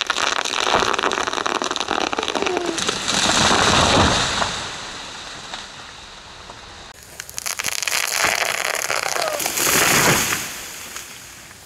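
A large poplar tree falling: a long crackling of splitting wood and snapping branches builds to a crash about four seconds in, then dies away. A second crackling crash follows near the end.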